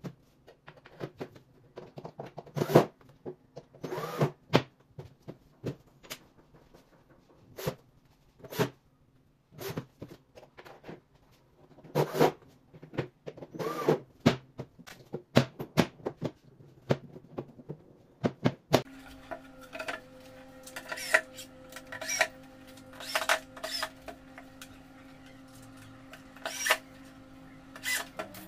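Flat-pack cabinet assembly: scattered knocks and clatter of particleboard parts, rails and a drawer being handled and fitted, with a cordless drill whirring briefly twice. About two-thirds of the way through, a steady low hum comes in under the continuing knocks.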